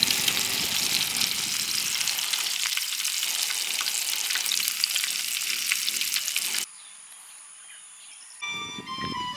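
Food sizzling and crackling as it fries, a steady hiss that cuts off suddenly about two-thirds of the way in. Music with plucked-sounding notes starts near the end.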